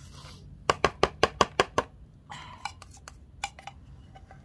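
Rapid sharp taps of a utensil on a plastic feeding dish, about six a second for roughly a second, then a brief scraping rustle and a few scattered clicks as cat food is dished out.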